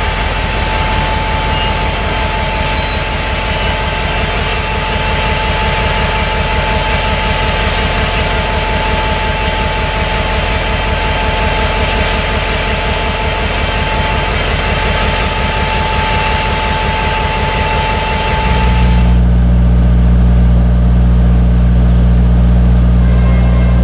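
EMD GP60 diesel locomotive pulling autorack cars slowly, its engine running with a rhythmic low beat under a thin, steady squeal. About three-quarters of the way in the sound cuts abruptly to a louder, steady low drone.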